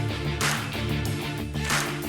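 Background music: sustained chords over a bass line, with a swishing sweep repeating about every second and a quarter.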